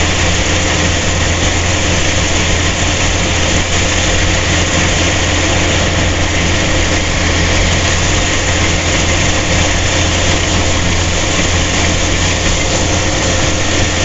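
A rice harvesting machine's engine running steadily at an even speed, with a strong low hum under a dense mechanical noise.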